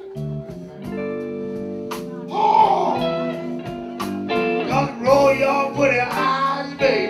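Blues band playing live: drums keeping time under low bass and guitar notes, with a lead electric guitar playing bent, wavering notes from about two seconds in.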